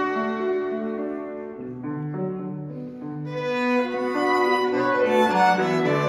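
Small string ensemble, violins and cello, playing a slow piece in sustained bowed notes. It softens about two seconds in, then swells louder from about three seconds.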